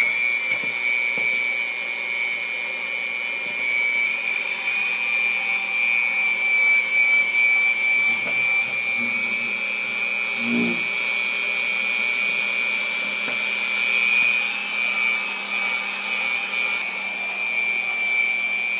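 Electric hand mixer running at a steady high speed, a constant high-pitched motor whine with its beaters whisking egg yolks and sugar as hot milk is poured in to temper them.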